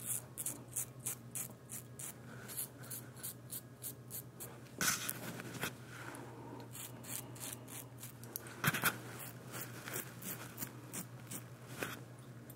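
Merkur 34C HD double-edge safety razor scraping through lathered stubble in short quick strokes, two or three a second, with a couple of louder strokes about five and nine seconds in, over a steady low hum.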